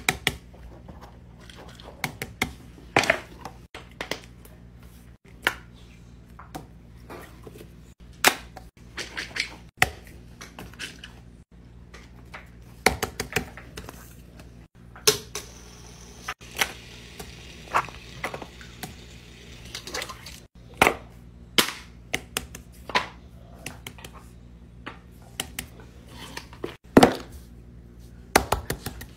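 Fidget toys being handled and set down on a tabletop: irregular sharp clicks, taps and knocks, some in quick clusters, over a faint steady low hum.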